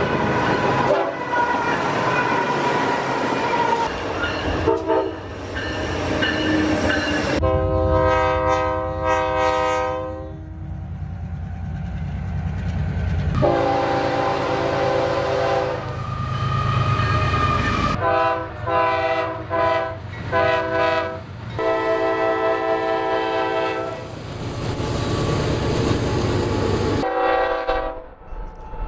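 Diesel freight locomotives sounding their multi-note air horns in long and short blasts over the rumble of the engines and rolling train, in several clips with abrupt cuts between them.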